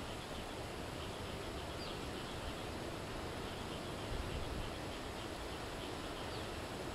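Steady background noise with a low rumble and faint, short high chirps now and then.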